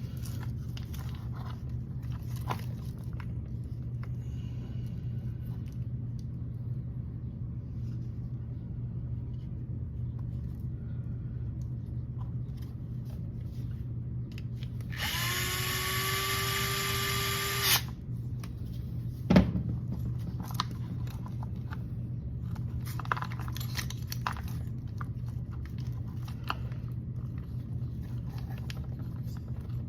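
A cordless drill runs in one burst of about three seconds, its whine rising slightly in pitch, amid light clicks of small parts being handled. A sharp knock follows a couple of seconds later, over a steady low hum.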